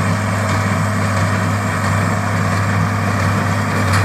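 International Harvester 1026 tractor's turbo diesel engine running steadily, a deep even drone.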